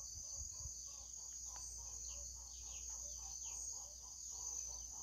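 Faint outdoor insect chorus: a steady high-pitched trill. Over it run many short descending chirps and lower, evenly repeated calls from other small animals.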